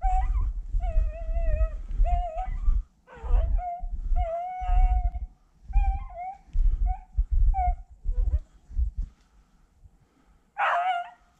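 A bluetick beagle baying on a cottontail's scent. It gives several long, wavering bawls, then a run of shorter yelps and one loud cry near the end. A low rumbling sits beneath the first several seconds.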